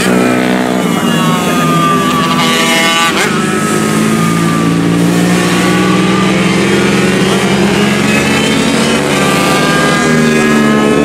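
Several racing motorcycles' engines at high revs. Their pitch climbs, drops sharply about three seconds in, then climbs again near the end as the bikes accelerate and change gear around the circuit.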